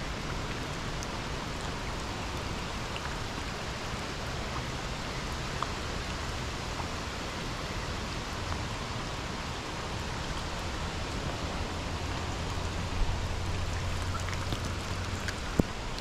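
Heavy rain falling steadily, an even hiss with scattered drop taps and one sharper tap near the end.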